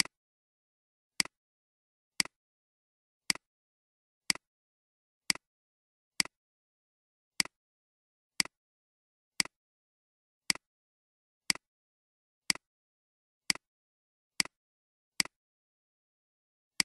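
Computer mouse button clicked about fifteen times, roughly once a second, each a short sharp click with dead silence between: single clicks paging a document forward one page at a time.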